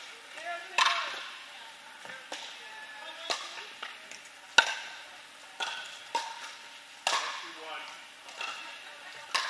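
Pickleball paddles striking a hollow plastic ball in a rally: about nine sharp pops in irregular succession, each ringing briefly in a large indoor court hall. Faint voices underneath.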